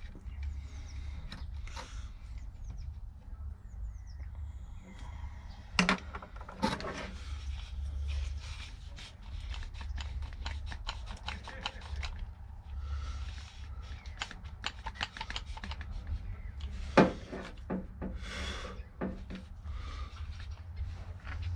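Workshop handling noise: irregular scraping and rubbing with scattered clicks, and two sharp knocks, about six seconds in and about seventeen seconds in.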